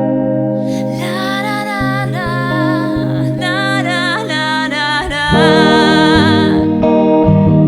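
Live song: a singing voice carrying a melody without clear words over acoustic guitar, the music getting louder about five seconds in.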